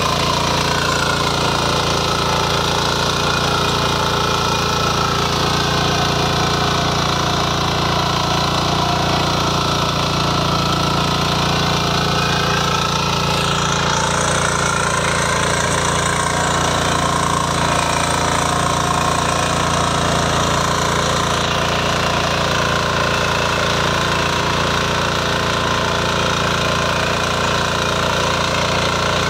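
Shrachi power weeder's single-cylinder engine running steadily under load while its rotary tines churn through the soil.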